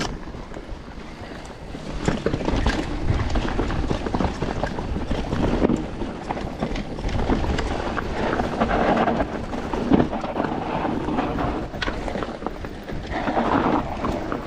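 Mountain bike riding down a rough enduro trail: tyres rolling over dirt and rocks and the bike rattling with many small knocks, with wind buffeting the microphone.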